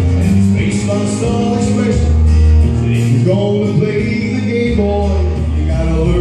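A man singing a country song into a microphone over a backing track with guitar, amplified through stage PA speakers.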